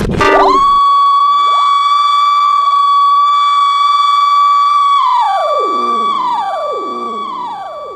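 Electronic intro music: a synthesizer holds one high, steady tone for about five seconds, then breaks into a string of falling swoops, roughly one a second, that echo and fade away.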